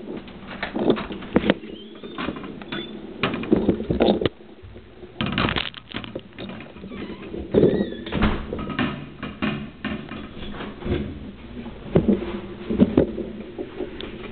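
Footsteps with irregular knocks and clatter in a tiled stairwell, with a few short squeaks.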